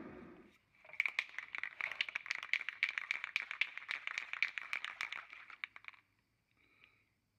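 Aerosol spray paint can being shaken, its mixing ball rattling rapidly for about five seconds before stopping.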